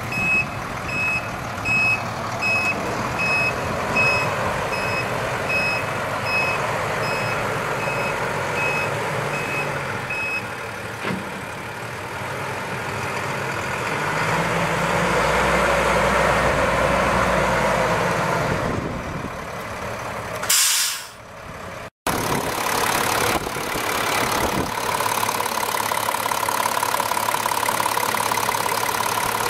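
Backup alarm of a 1998 International 4700 flatbed truck beeping about twice a second while its DT466 inline-six turbo diesel runs; the beeping stops about ten seconds in. The diesel grows louder as the truck pulls up, a short hiss of air from the air brakes follows, and then the engine idles steadily.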